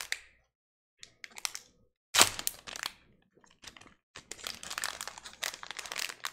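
A sealed trading-card pack wrapper being torn open and crinkled by hand, in bursts with short pauses: a sharp tear about two seconds in, and steady crinkling through the last two seconds.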